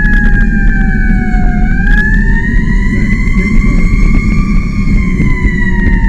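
Fire apparatus siren on a slow wail, heard from inside the cab over heavy engine and road rumble. The pitch falls to about a second and a half in, climbs until about four and a half seconds, then falls again.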